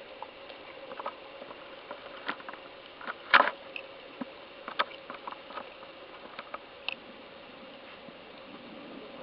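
Small irregular water splashes and drips against a kayak, with one louder splash a little over three seconds in, over a faint steady hum.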